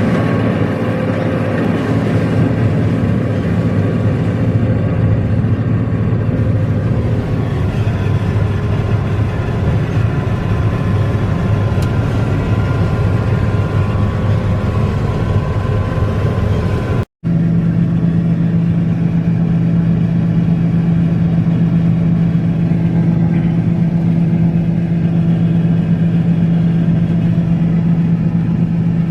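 Combine harvester running steadily while harvesting soybeans. The sound cuts out for a moment a little past halfway and returns as a steadier, higher hum.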